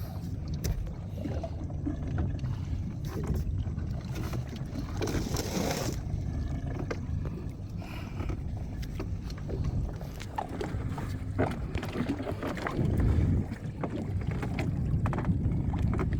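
Steady low rumble of wind and water around a small boat, with scattered knocks and clatter as a fish trap is handled alongside, and a brief rushing noise about five seconds in.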